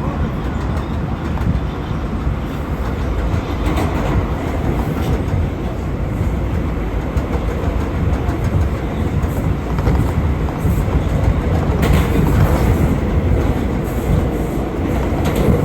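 R179 subway train running at speed, heard from inside the car: a steady, heavy rumble with a few sharp clicks as the wheels cross rail joints.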